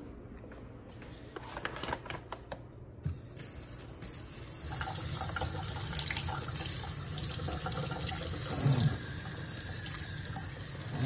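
A plastic fish bag crinkles briefly in the hand, then about halfway through a kitchen faucet starts running steadily, water splashing over the bag in a stainless steel sink to rinse it off.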